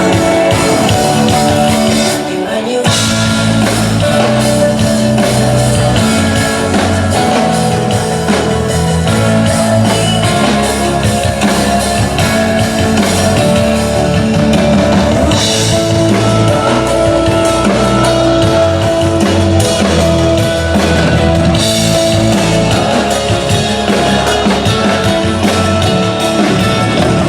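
Live rock band rehearsing through a stage PA during a sound check: drum kit, bass and guitar playing with a singing voice.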